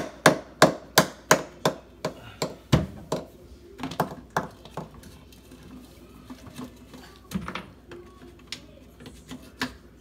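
Hammer tapping: a quick run of sharp knocks, about three a second, for the first two seconds, then scattered single knocks, sparser toward the end.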